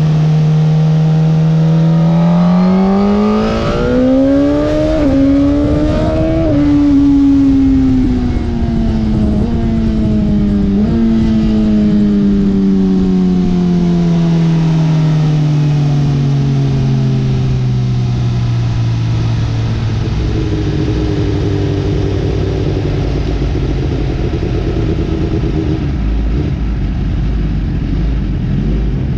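2020 Suzuki GSX-R1000R's inline-four engine running on track. It revs up in the first few seconds with two short drops in pitch as it shifts up, then the pitch falls slowly over a long stretch with a couple of small steps, and it settles low near the end, over a steady rushing noise.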